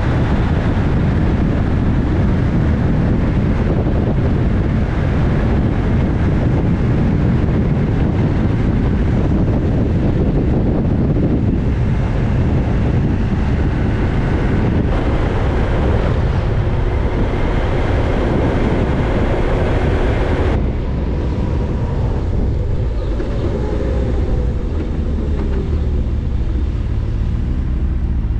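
Wind rush and road noise from a motorcycle riding at road speed, with its engine running underneath. About two-thirds of the way through, the rush drops as the bike slows down.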